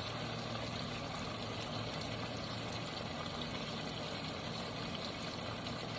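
Chicken cutlets and vegetables cooking in a pan, giving a low, steady sizzle.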